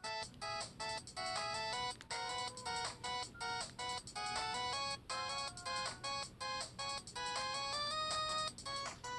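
A synthesized ringtone-style melody playing through a basic cell phone's small speaker, a quick run of short stepped notes.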